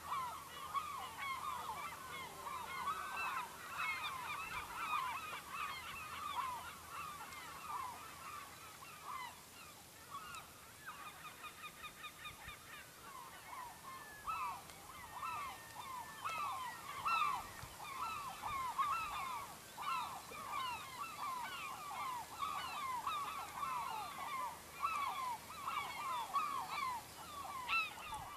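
A flock of seagulls calling continuously: many short, overlapping squawking calls with a quicker, softer run of evenly spaced short notes about ten seconds in.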